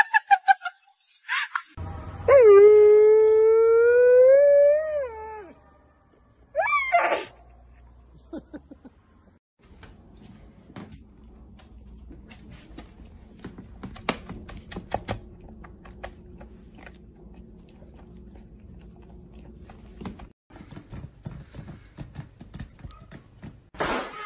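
A howl: one long note held for about three seconds, rising slightly and wavering as it ends, then a short rising cry. After that comes faint scattered clicking over a low steady hum.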